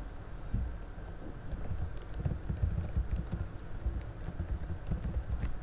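Soft irregular thumps and a few faint clicks over a low steady hum: handling noise at a computer desk, denser from about a second and a half in.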